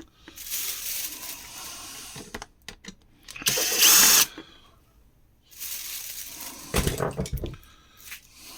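A cordless drill-driver runs in one short burst about three and a half seconds in, its motor whine dipping in pitch. Around it are the rustle and clatter of parts being handled, with a few knocks near the end.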